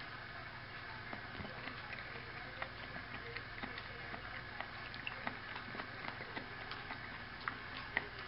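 A person eating: small soft clicks of chewing and of utensil taps, roughly two a second, over a steady low room hum.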